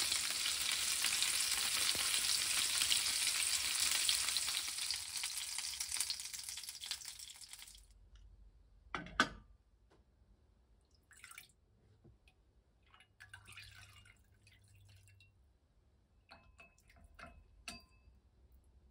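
Stuffed baby peppers sizzling as they fry in oil in a small nonstick pan, turned with chopsticks; the sizzle fades out over the first eight seconds. Then a single sharp knock, faint pouring of sauce into a ceramic bowl, and chopsticks clinking lightly against the bowl as the sauce is stirred.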